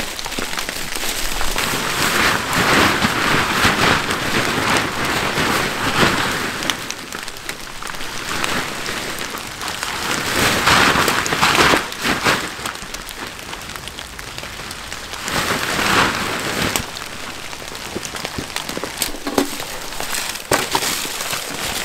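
Heavy rain pouring down, a dense steady hiss that swells louder several times, with a few sharp taps near the end.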